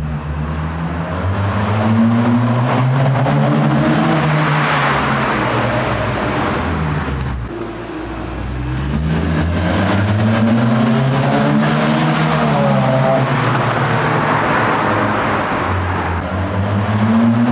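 A Honda Civic with an aftermarket exhaust driving through a road tunnel. The exhaust note climbs in pitch and then falls away, three times over.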